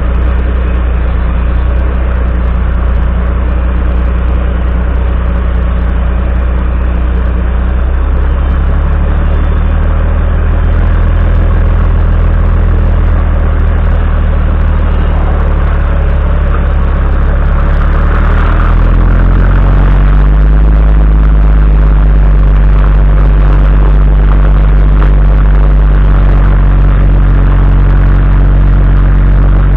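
Volvo FMX 440 truck's six-cylinder diesel engine running as the tractor unit manoeuvres with a low loader. Its note steps down about a third of the way in, then rises a little past halfway to a higher, steady engine speed and grows louder.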